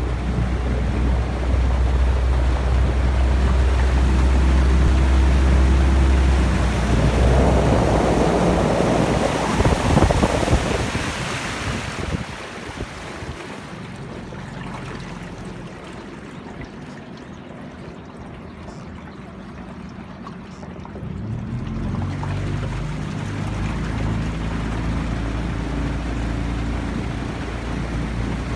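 Small motorboat's outboard engine running at a steady note, with wind on the microphone. About seven seconds in the engine note is lost under a loud rush of wind, the sound stays quieter for about ten seconds, and the engine note comes back about 22 seconds in.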